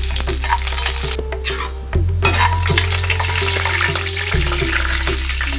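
Curry leaves, chillies and tempering spices sizzling and crackling in hot groundnut oil in an iron kadai as they are stirred. Background music with low bass notes plays underneath.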